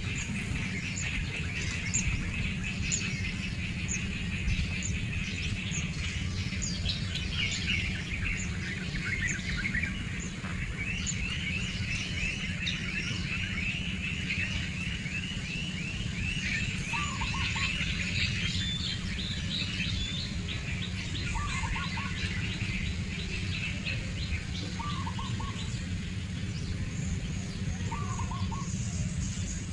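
Wild birds chirping and singing over a steady low background rumble, with a long rapid trill near the middle and a lower short call repeating every three to four seconds in the second half.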